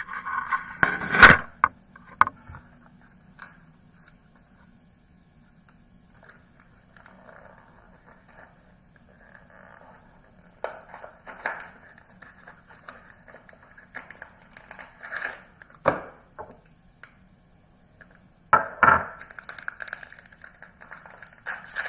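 Plastic packaging of an ink cartridge being scraped and worked open, with rustling and a few sharp clicks and knocks, the loudest about a second in.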